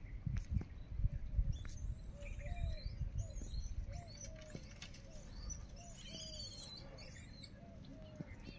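Wild birds calling: high chirps and whistled, gliding notes through the middle, over a steady series of short, lower repeated calls. A low rumble with a few soft knocks sits under the first two seconds.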